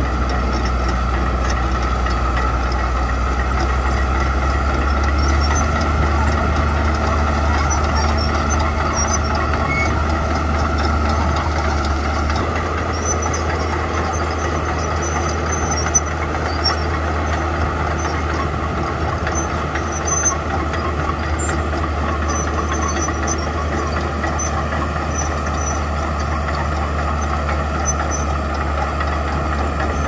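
Komatsu crawler bulldozer's diesel engine running steadily under load as the dozer pushes a pile of gravel with its blade, with a couple of short knocks past the middle.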